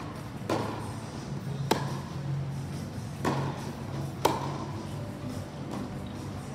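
Tennis rally: four racket-on-ball strikes about a second to a second and a half apart, two sharp and loud and two softer, each echoing in an indoor hall over a steady low hum.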